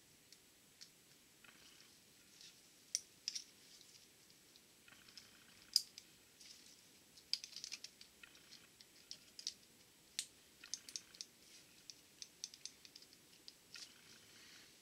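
Snap-ring pliers and a steel c-clip (snap ring) clicking and ticking as the clip is spread and worked onto a T-10 transmission mainshaft, with a few brief metal scrapes. The clip is a slightly thicker one, fitted to take up the mainshaft clearance. The clicks are faint and irregular.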